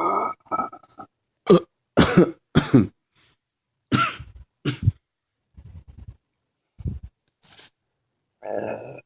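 A person coughing and clearing the throat: a run of short, loud coughs in the first half, then a few fainter throaty sounds and one longer one near the end.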